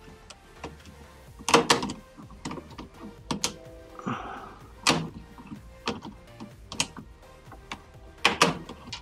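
Hand tools clicking and knocking against a washer's drain pump assembly and cabinet as the pump is fastened back in place, in scattered sharp taps, the loudest about a second and a half in and near the end.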